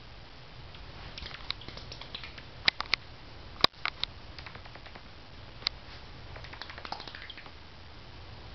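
A bat hidden in the rafters giving scattered short, high squeaks and clicks in small clusters, with one sharper click about three and a half seconds in; the owner takes the calls for an angry bat.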